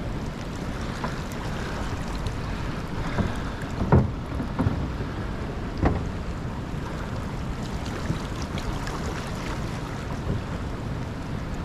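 Steady wind noise on the microphone aboard a small aluminium fishing boat on the river, with two sharp knocks about four and six seconds in.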